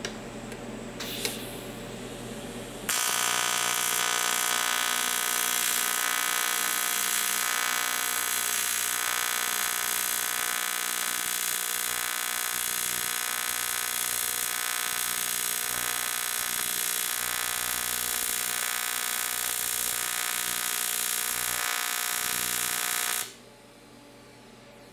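AC TIG welding arc on 1/8-inch aluminum at a fixed amperage of about 140, a steady buzz with strong hiss. A click about a second in; the arc switches on about three seconds in and cuts off abruptly near the end with an on-off switch and no amperage taper, which leaves a crater at the end of the bead.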